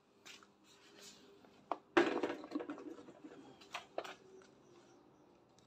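A pressure washer set down onto a steel platform scale: one sharp knock about two seconds in, with a short clatter after it and a few lighter knocks and clicks from handling the machine.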